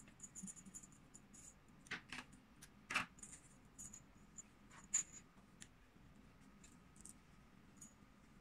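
Small bell on a crocheted dog collar jingling faintly in short tinkles as the collar is worked, with a few light clicks.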